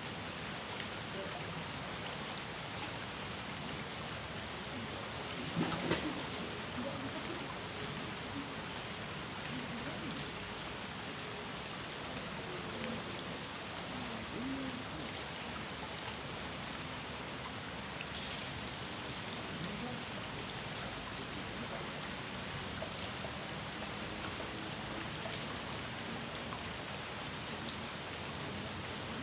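Steady rain falling on a pond, an even hiss, with a short louder sound about six seconds in.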